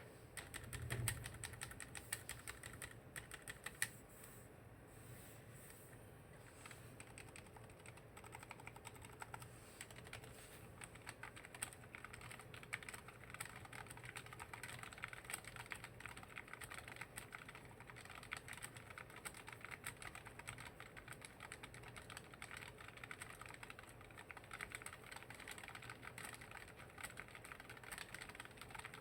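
Typing on a YK75 low-profile mechanical keyboard with red linear switches: a fast, continuous run of key clacks, with a low thump about a second in.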